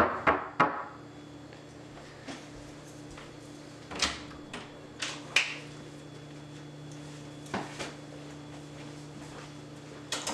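Three quick knocks on an apartment door, then the clicks and knocks of its lever handle and latch as the door is opened, and more clicks as it is pushed closed near the end.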